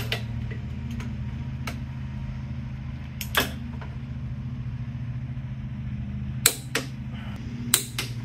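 Click-type torque wrench clicking as the Dana 60's differential bearing-cap bolts reach 85 ft-lb: sharp single clicks, a strong one about three and a half seconds in and another group from six and a half seconds on, over a steady low hum.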